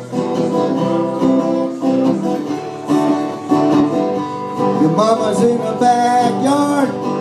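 Acoustic guitar strummed in a song's intro, with a man's singing voice coming in about five seconds in.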